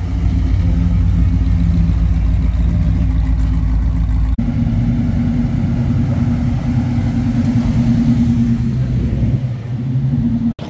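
Classic car engines running as the cars drive slowly past, each giving a steady low engine note. About four seconds in the sound cuts to a different car, a 1940 Ford, whose note sits a little higher and steadier.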